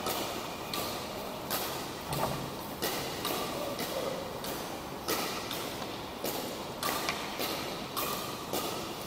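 Badminton rackets striking shuttlecocks on several courts of a large indoor hall: sharp, irregular hits about twice a second.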